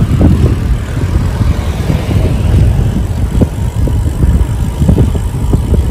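Wind buffeting the microphone of a camera on a moving bicycle: a loud, uneven low rumble that surges and dips.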